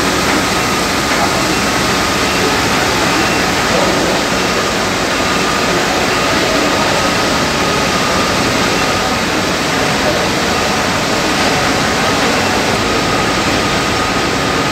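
Tea-factory processing line running: electric motors, rollers and conveyor belts make a loud, steady mechanical din with a thin, constant whine through it.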